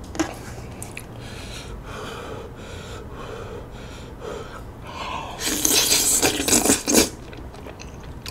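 Close-up eating sounds: several seconds of soft, regular chewing, then about a second and a half of loud wet slurping as thick Chinese glass noodles in spicy tteokbokki sauce are sucked into the mouth.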